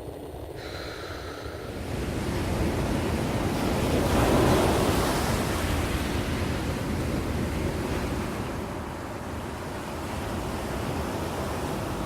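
Ocean surf: a wave swells and breaks about four seconds in, then washes back, with another swell building near the end. A short bird call sounds near the start.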